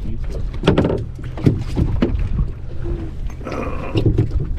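Sharp knocks and clatter of handling on a fishing boat, over a steady low hum.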